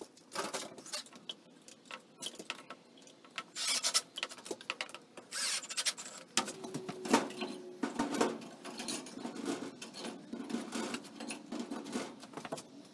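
Irregular clicks, taps and knocks of workshop handling: a cordless drill and a wooden box being moved and set down, with a short run of the drill driving a screw about halfway through.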